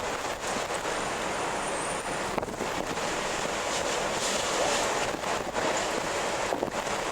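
Strong wind blowing in gusts: a continuous rushing noise that swells, loudest about four to five seconds in.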